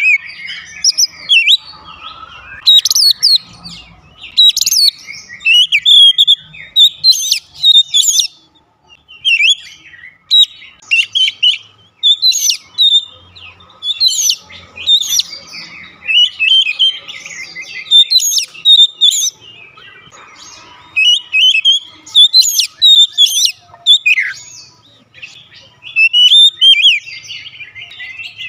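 Oriental magpie-robin singing: loud, varied whistled phrases of quick rising and falling notes, one after another every second or two.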